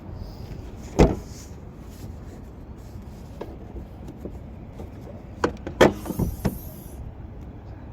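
Sharp clunks and knocks: one loud clunk about a second in, then a quick cluster of four or five knocks and clunks a little past the middle.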